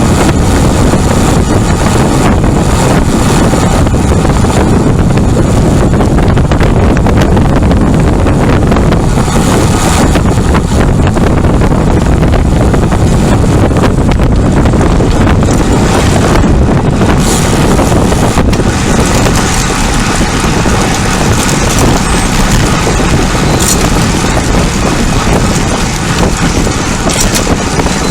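Wind buffeting the microphone of a camera carried on a moving road bicycle: a loud, steady rushing rumble from riding at speed.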